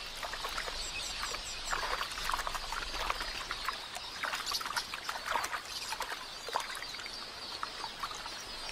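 Repeated splashing and sloshing of shallow water as helmeted terrapins lunge at drinking red-billed quelea, with faint high chirps from the birds.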